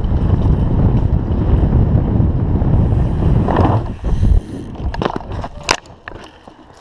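Wind buffeting the camera microphone as the bicycle rider speeds down the dirt track and launches, cutting out suddenly about four seconds in. It is followed by a few sharp knocks and thuds as the rider and bike crash to the ground after a failed backflip.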